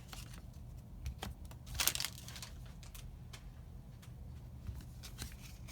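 Faint light clicks and brief rustles of paper trading cards and a foil booster-pack wrapper being handled, with a short cluster of them about two seconds in.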